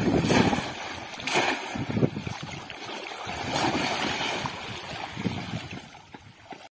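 Shallow floodwater splashing and sloshing as a bamboo polo fish trap is lifted out with water pouring from it and a person lunges and thrashes through the water. There are several surges of splashing, dying down toward the end.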